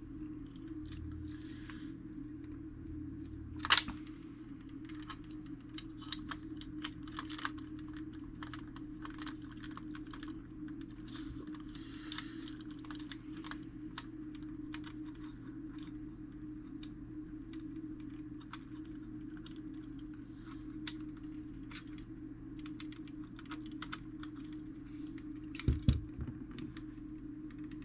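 Small metal clock-movement parts clicking and tapping as they are handled and fitted together, with one sharp loud click about four seconds in and a couple of dull knocks near the end, over a steady low hum.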